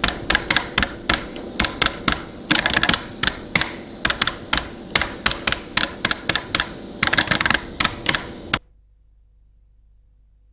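Typing sound effect: a fast, uneven run of sharp key clicks that stops suddenly near the end.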